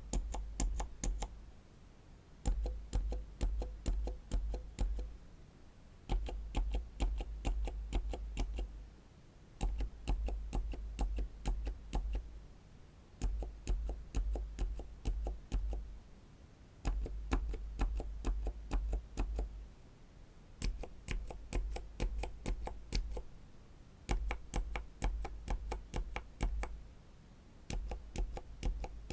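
Silent mechanical keyboard switches being pressed in runs of six soft clicks, a new switch for each run, with a short pause between runs.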